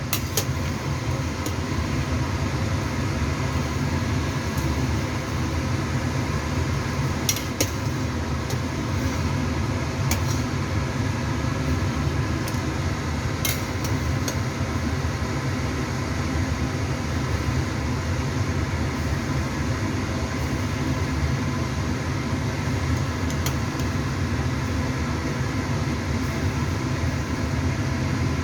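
A steady machine hum that holds unchanged throughout, with a few light clicks scattered through it.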